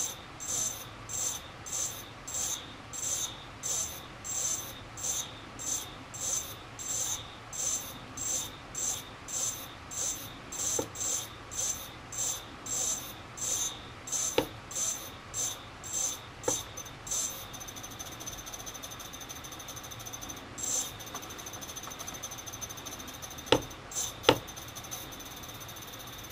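T-Motor brushless drone motor making a weird, rhythmic high chirp about one and a half times a second, then changing about 17 seconds in to a steady high whine. The uploader is unsure whether the motor or the ESC is at fault. Two loud sharp clicks come near the end.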